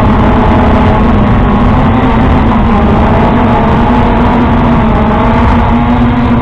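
Electric motors of a radio-controlled boat drone running steadily, picked up close by its onboard camera: a loud whine with a low hum that wavers slightly in pitch, over a heavy rumble.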